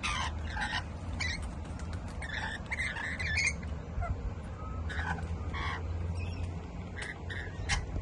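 Rainbow lorikeets giving short squawking calls again and again, over a steady low rumble.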